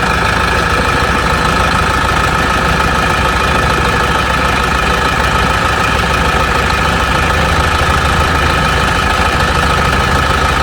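Hitachi excavator's Isuzu 16-valve diesel engine running steadily, a low rumble with a steady high whine over it. It sounds normal, with no abnormal engine noises.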